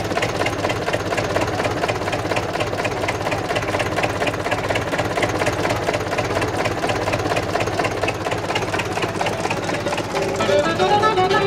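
UTB 650 M tractor's diesel engine idling with a steady, even clatter. Violin music comes in near the end.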